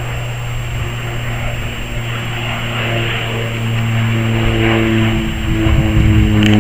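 Beechcraft King Air C90 twin-turboprop passing overhead: a steady propeller drone with a rush of engine and air noise. Background music with held notes comes in about four seconds in and grows louder.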